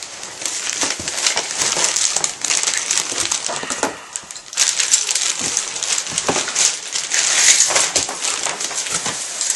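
Packaging being handled and pulled apart: continuous crinkling and rustling, with a brief lull about four seconds in.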